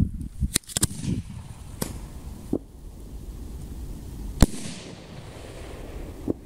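Homemade 75 mm (3-inch) aerial firework shell test-fired: several sharp pops in the first two seconds, then the shell bursting with one loud bang about four and a half seconds in, followed by a brief hiss.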